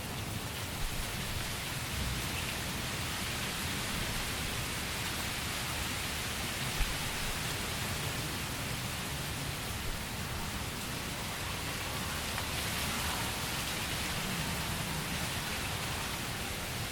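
Steady rain falling on a tent, an even hiss of drops on the fabric, with a couple of brief low thumps.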